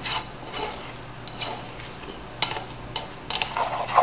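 A spoon stirring ground beef with chopped onion and garlic in a black nonstick frying pan, with irregular scrapes and taps against the pan that come quicker near the end.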